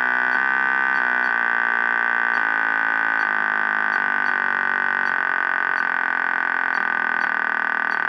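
A speaker driven by a signal generator plays a steady high tone in rapid repeated bursts, heard as a buzzing beep. Its texture shifts in steps several times as the burst repetition rate is adjusted to space the pulses further apart.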